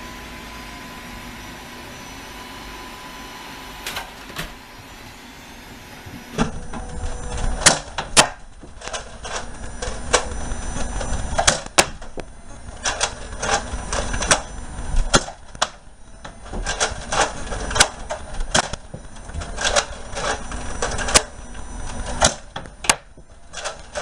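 Plastic clicks and clacks of toy Nerf dart blasters being primed and fired, with darts striking: first a few seconds of steady hiss with a faint high tone and a couple of clicks, then from about six seconds in many sharp, irregular clicks and knocks.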